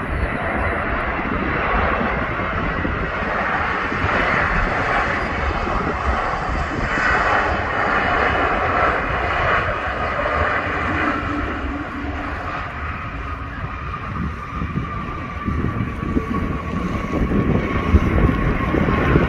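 Jet airliner engines, a steady rushing noise with a faint whine that slowly falls in pitch over the second half.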